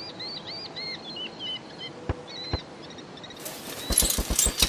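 A small bird chirping over and over, with two thumps about two seconds in. Then a loud rushing hiss sets in with a fast run of thuds, about seven a second, as the wheeled hang glider makes its takeoff run across the rock.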